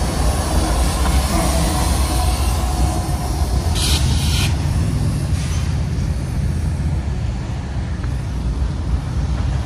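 Freight train rumbling steadily, with a brief hiss about four seconds in.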